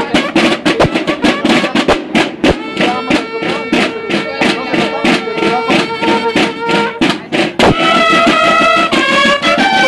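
Banda de guerra drum and bugle corps playing: drums beat a fast, steady rhythm while the bugles hold one long note, then move into a melody about three-quarters of the way through.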